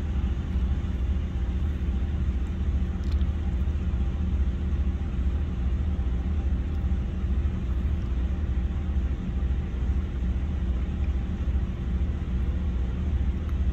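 Car engine idling steadily, a constant low hum with no change in pitch.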